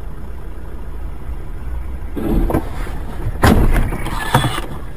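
Car cabin with a steady low road and engine rumble as the car slides off the road into deep roadside snow. It gives a rough burst about two seconds in and a louder thudding rush about three and a half seconds in, as the car ploughs into the snow.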